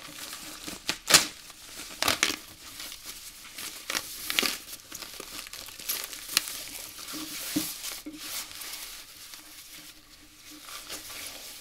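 Rustling and crinkling of a white protective wrapping being pulled off a studio monitor speaker, with irregular sharp crackles throughout, the loudest about a second in.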